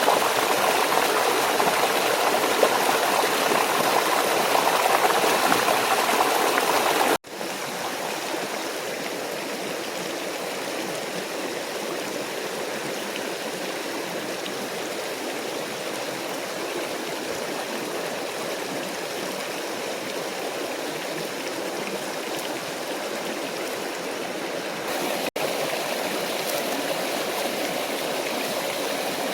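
Water of a small stream and waterfall rushing steadily. It is louder for about the first seven seconds, then breaks off for an instant and continues quieter. It steps up a little again after another brief break near the end.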